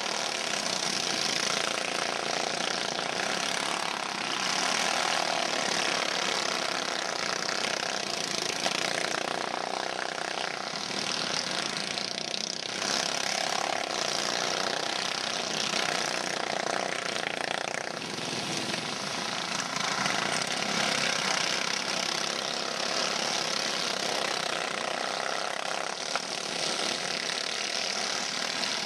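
Several go-kart engines running together as a pack of karts races, a steady overlapping buzz.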